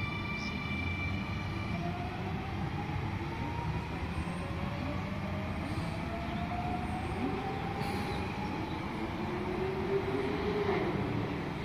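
Electric suburban train running through the station, its traction motors giving a thin whine that slowly rises in pitch over the steady rumble of wheels on rail.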